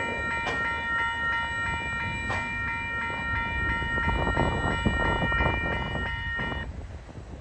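Level crossing warning bells ringing steadily over the rumble and wheel clatter of a coal train's hopper wagons rolling past. The bells cut off near the end as the last wagon clears the crossing.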